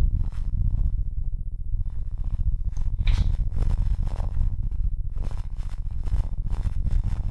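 Computer keyboard clicking in irregular runs of keystrokes, with a brief pause about a second in, over a steady low hum.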